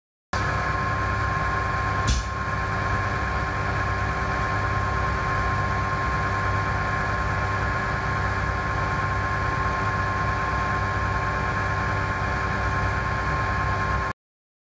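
Vacuum pump serving a Bio-Rad PDS-1000/He particle gun running steadily while the chamber is held at vacuum, a low motor hum with a few held tones. One short click about two seconds in.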